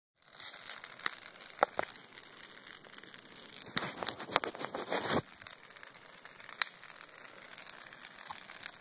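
Large tire fire burning: a steady hiss of flames with scattered sharp pops and crackles. A denser, louder run of pops and rustling comes in the middle and stops abruptly.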